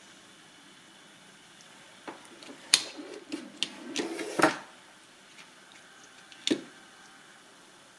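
Hand handling the test bench's wiring and control board: a cluster of sharp clicks and rustling over about two and a half seconds, then one more click. The motor and propeller are not running.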